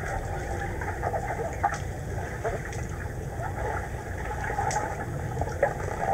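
Underwater pool ambience picked up by a submerged camera: a muffled, steady low rumble and hiss with scattered faint clicks and knocks.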